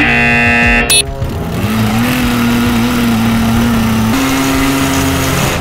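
A loud buzzing tone for about a second, ending in a short bright ring. Then the trap's motor whirs up in pitch and runs steadily, steps a little higher about four seconds in, and cuts off near the end.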